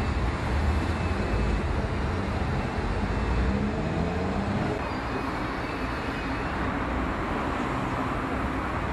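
Steady outdoor street traffic noise with a low rumble, a vehicle's engine note gliding faintly through the first half.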